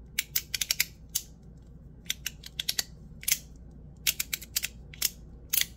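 Ti Rhythm titanium fidget slider clicking as it is worked by hand: sharp, bright metal clicks in irregular quick clusters.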